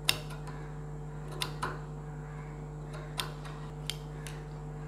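Low steady hum under a handful of short, sharp clicks and taps from fabric pieces being handled on a sewing table, about six in all.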